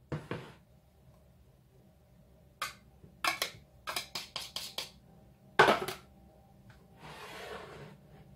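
Kitchenware clinking and knocking as margarine is tipped from a glass scale bowl into a mixing bowl and a table knife is handled: a string of short clicks, one louder knock a little past halfway, then a soft scraping rustle near the end.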